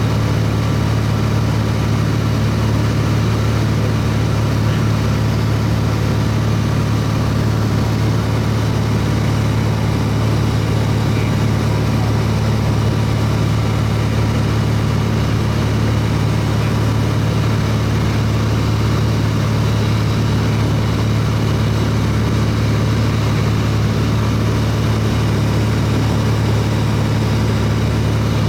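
Airplane engine running steadily in flight, a constant low drone with no change in pitch or level.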